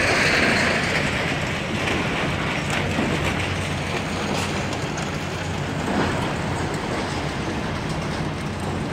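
Diesel excavators working a demolition site: a steady, dense mechanical rumble over a low engine drone.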